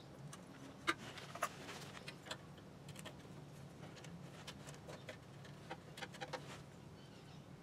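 Faint, scattered metallic clicks and taps from a steel pedal linkage rod being handled and fitted between a sewing machine's clutch-motor lever and its foot pedal, the sharpest click about a second in.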